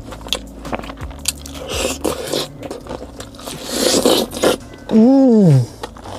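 Close-up eating noises: chewing, biting and scraping at food, with clicks and short noisy bursts. About five seconds in comes one loud voiced sound that rises and then falls in pitch, like a drawn-out "mmm" of enjoyment.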